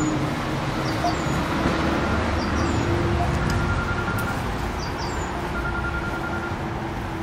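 Steady traffic rumble with a low hum, and small birds giving short, high chirps every second or two.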